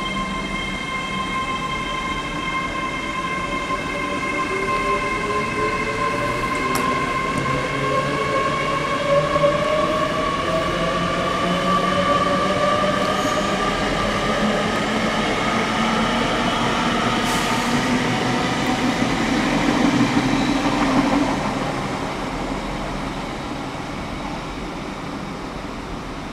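Electric train pulling out of a station, its traction motors whining steadily higher in pitch as it speeds up. The sound builds and then fades away after about twenty seconds.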